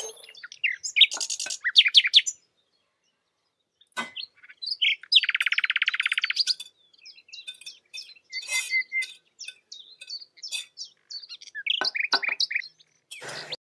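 Small birds chirping and twittering in short calls, with one fast buzzing trill lasting about a second and a half near the middle. The sound drops out to silence between bursts.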